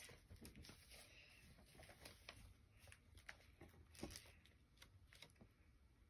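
Near silence, with faint rustles and a few light taps of paper pages being handled and turned in a hand-made book.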